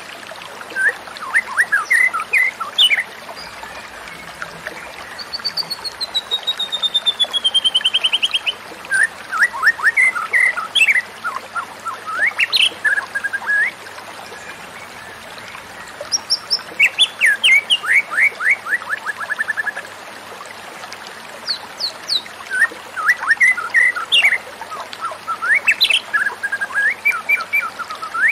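White-rumped shama singing: varied phrases of quick whistled notes and trills, one of them a long series of notes falling steadily in pitch, with a faint steady hiss beneath.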